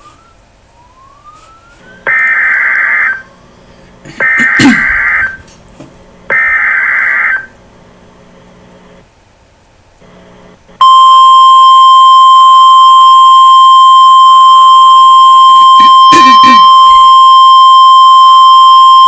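Emergency Alert System header: three one-second bursts of warbling digital data tones about two seconds apart. About eleven seconds in, the steady single-pitched 1050 Hz National Weather Service warning tone starts and holds.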